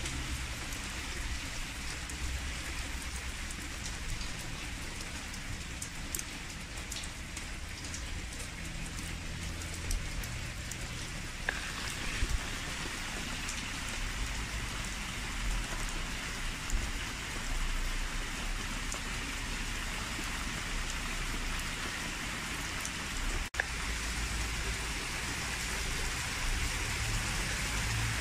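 Steady rain falling on a wet paved street and tiled pavement, an even hiss with a few sharper drop ticks close by.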